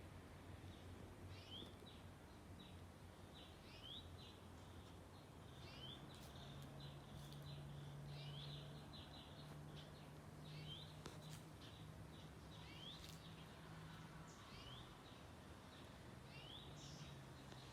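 Faint bird chirping: short upward-sweeping chirps repeating every second or two, over a faint steady low hum.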